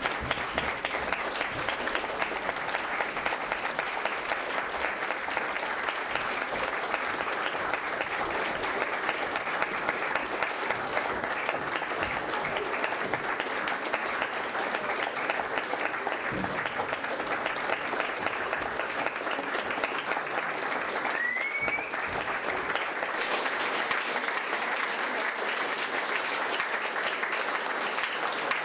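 Theatre audience applauding steadily through a curtain call, with a short rising tone about three-quarters of the way through.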